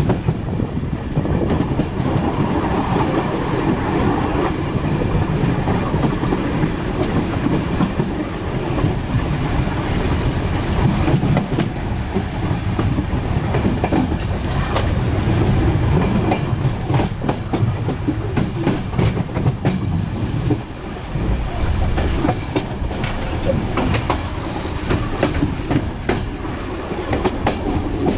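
Train running on the rails, heard from the rear cab: a steady rumble of the wheels with clickety-clack over rail joints and switches, the clicks coming most densely around the middle.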